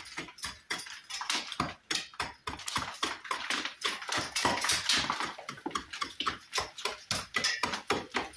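Hammer chipping at the face of a recessed brick, with rapid repeated sharp strikes of about four or five a second. The strikes are trimming back high spots so the recess has an even depth to take a cut brick slip.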